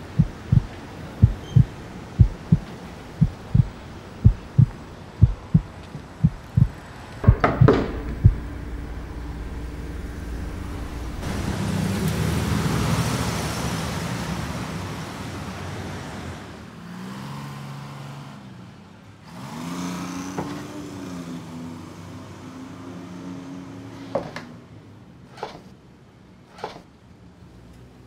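Film sound design: a low, heartbeat-like thumping, about one and a half beats a second, ends with a heavier hit about seven seconds in. A rising and falling rumble of noise follows, then a low hum with sliding tones and a few sharp clicks near the end.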